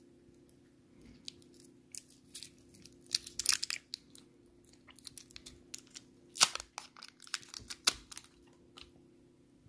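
Paper wrapper of a Maoam Bloxx chewy candy being torn and crinkled open by hand: irregular crackling, loudest in two spells, around three and a half seconds in and again about six and a half seconds in.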